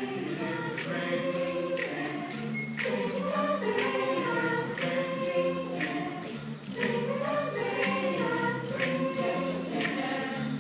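Mixed-voice youth choir singing together in parts, with a light tick about once a second keeping the beat.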